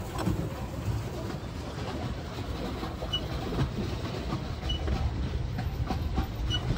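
Pedal boat's paddle wheel churning the water as it is pedalled: a steady low rumble with many small knocks. A few short high chirps sound over it.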